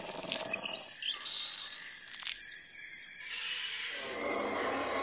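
Jungle ambience sound effect: birds chirping over a steady insect buzz, with a broader rushing noise coming in a little past three seconds.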